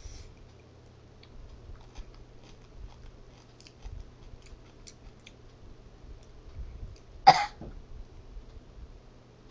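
A girl coughs once sharply about seven seconds in, with a smaller cough right after, while eating hot jalapeño peppers, the heat catching in her throat. Faint clicks of chewing come before it.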